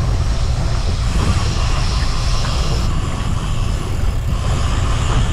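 Motorboat engine running steadily under way at trolling speed, with a constant rushing hiss of water and air over the low rumble.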